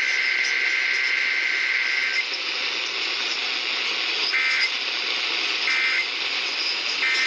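EAS/SAME digital data tones received over NOAA Weather Radio, with steady radio hiss behind them. A long warbling two-tone data burst ends about two seconds in, followed by three short bursts about 1.4 seconds apart, the pattern of the end-of-message code.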